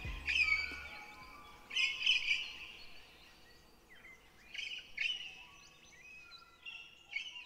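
Birds chirping in short, repeated phrases that grow fainter toward the end. A low music bass line stops about a second in.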